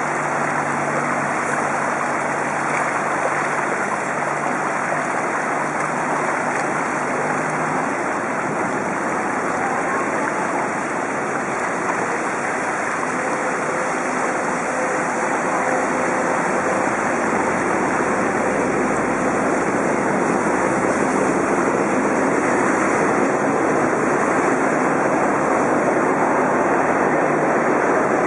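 Harsh wind noise buffeting the microphone of a bicycle-mounted compact camera while riding, a steady rushing hiss. A low rumble builds in the second half as a bus draws alongside.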